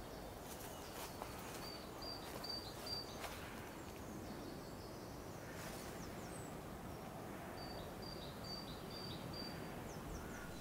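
Woodland ambience: a small songbird sings a phrase of four or five quick, high repeated notes twice, a couple of seconds in and again near the end, over a faint steady outdoor hiss with a few soft clicks.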